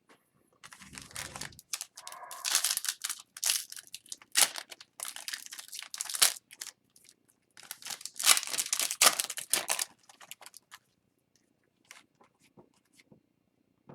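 Hockey card packs and cards being handled: crinkling and tearing of the pack wrapper and rustling of cards, in bursts that stop about ten seconds in, followed by a few faint clicks.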